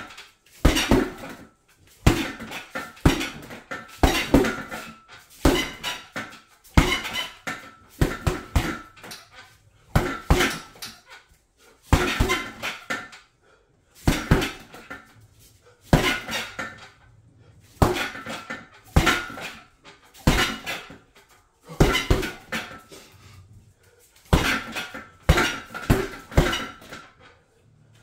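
Punches, mostly jabs, landing on a hanging heavy bag, about one a second and often two in quick succession. Each hit is followed by a brief metallic rattle from the bag's steel stand.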